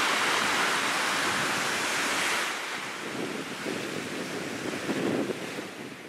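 Wind-driven surf breaking on a sand beach of a large lake, a steady rush of waves with wind in the background; it gets quieter about two and a half seconds in.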